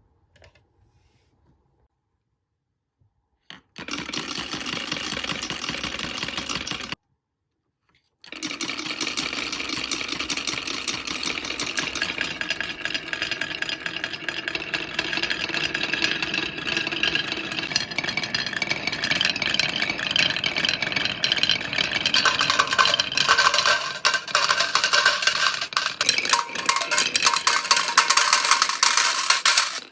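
Marbles rolling and clattering down a HABA toy marble run, a dense stream of small clicks and rattles. It starts after a few silent seconds, breaks off briefly, then carries on and grows busier and brighter toward the end.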